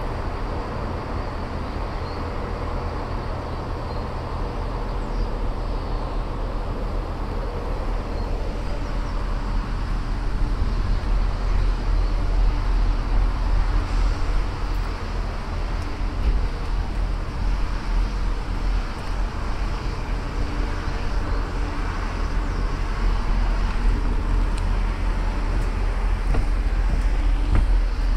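City street traffic: a steady low engine rumble and hum that gradually grows louder from about ten seconds in.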